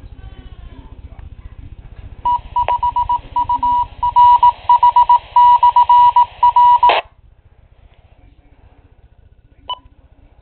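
Icom IC-Delta1A handheld ham radio's speaker sounding a loud beep tone, keyed on and off in a dot-dash rhythm like Morse code for about five seconds, over a low hum that cuts off sharply when the tone stops. One short beep follows near the end.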